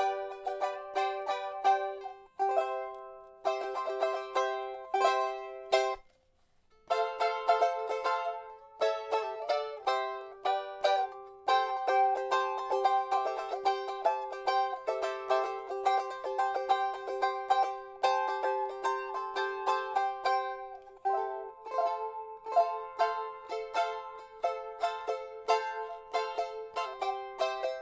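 Asonu eight-string Tahitian ukulele, strung with fishing line, being strummed and picked in a bright, fast run of chords and notes, with a brief break about six seconds in.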